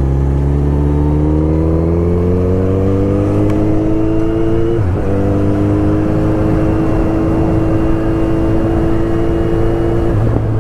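Motorcycle engine pulling hard under acceleration, its pitch climbing steadily, dipping briefly at a gear change about five seconds in and rising again, with another drop near the end. Wind rush mixes with the engine.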